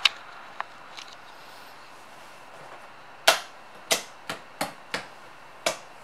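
Sharp clicks and knocks from hands working the switches and controls on a homemade Pelican-case boombox, with the music off. There are about eight at uneven intervals, the loudest about three seconds in.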